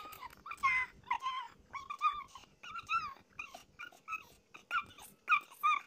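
Kittens crying out over and over while wrestling, short high squealing mews about two a second, each bending in pitch.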